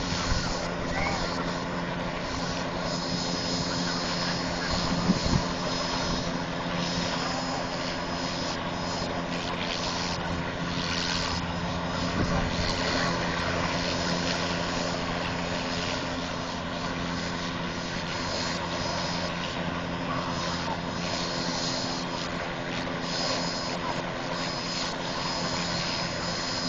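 OH-58 Kiowa light helicopter running on the ground with its rotor turning: a steady turbine whine over the even beat of the rotor, holding at a ground idle before lift-off.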